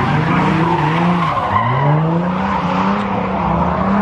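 Car doing a burnout: the engine held at high revs while the rear tyres spin and squeal. About a second and a half in the engine pitch drops, then climbs steadily again.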